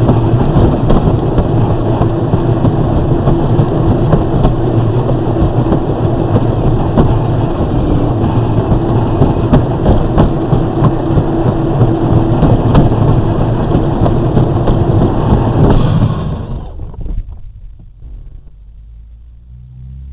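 Children's battery-powered Power Wheels ride-on car driving over pavement, its plastic wheels rumbling and its electric drive running, picked up loud and rattly by a camera mounted on the car body. The noise stops about three-quarters of the way through as the car comes to a halt.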